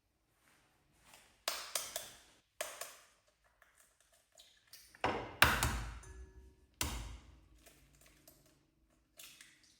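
Hard objects being handled and set down: an irregular run of clicks, taps and ringing clinks. The loudest are two heavy knocks with a low thud, about five and a half and about seven seconds in.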